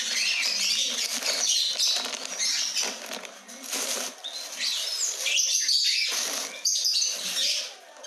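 Woven plastic sack rustling and crinkling as it is shaken and handled to tip out dead lovebirds, with a few short bird chirps in the background.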